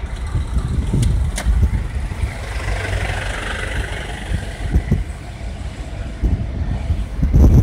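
Car driving slowly, heard from inside: engine and road noise with an uneven low rumble, and a swell of hiss about three seconds in.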